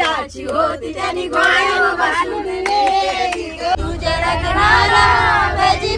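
Several people singing a song together, antakshari-style. A low steady rumble joins in about four seconds in.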